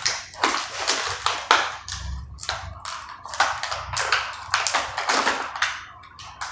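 Packaging of a new door lock being handled and opened: quick, irregular crinkling and crackling with small taps.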